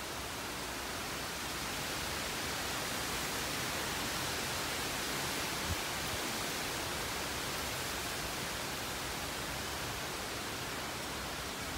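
Tropical-storm wind and rain: a steady rushing hiss that builds a little over the first couple of seconds. There is one brief low thump around the middle.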